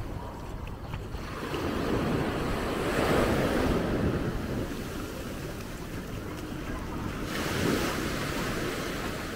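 Small ocean waves breaking and washing up the sand, the surf swelling louder about two to three seconds in and again near the end, with wind rumbling on the microphone.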